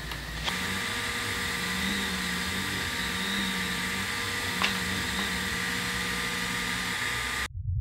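EleksMaker EleksLaser A3 Pro diode-laser engraver running: a steady whir with a low stepper-motor hum that starts and stops in short runs as the gantry moves the laser head. There is one small click about halfway, and the sound cuts off suddenly just before the end.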